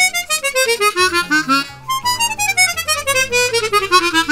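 Hohner Discovery 48 12-hole chromatic harmonica playing fast descending runs of notes, two runs in a row. The player finds its tone airier and more breathy, which he puts down to air leaking at its plastic mouthpiece.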